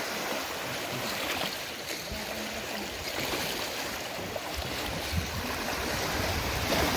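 Floodwater of the Ganga river washing steadily around a small wooden boat, with some wind rumble on the microphone in the later seconds.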